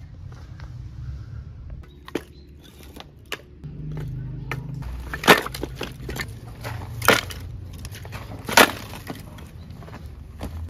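Split firewood sticks knocking together as they are stacked by hand: a series of light wooden knocks, with three much louder sharp clacks in the second half.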